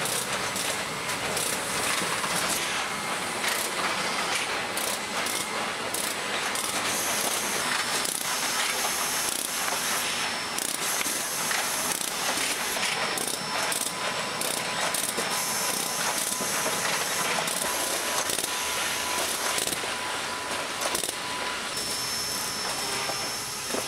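High-speed top-load cartoner and its conveyors running at production speed: a steady mechanical clatter of many rapid clicks over a constant hiss, with a faint high whine.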